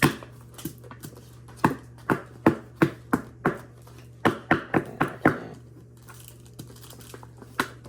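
Hands opening and handling a trading-card starter deck's cardboard box and paper wrapping: a series of irregular sharp taps and clicks, some in quick clusters.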